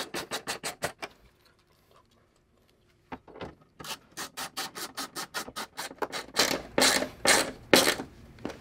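Hand screwdriver driving the stand's screws into the back of a TV: a quick run of clicking turns, about five or six a second, that stops for about two seconds and then resumes, with heavier, longer strokes near the end.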